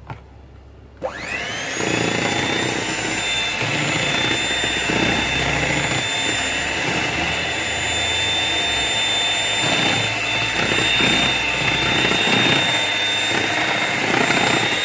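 Electric hand mixer switched on about a second in, its motor whining up to speed and then running steadily, the beaters churning through mashed banana and margarine in a plastic bowl.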